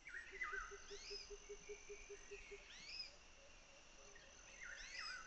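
Faint forest ambience. There is a steady high insect drone, and birds give short rising whistles plus a falling-then-rising call near the start and again near the end. Over the first half a low pulsing call repeats about five times a second.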